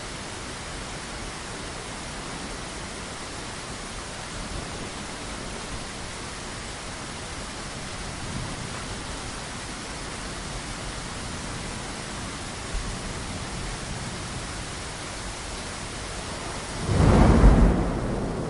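Steady rain falling, an even hiss. Near the end a loud, deep roll of thunder swells up for about a second and a half.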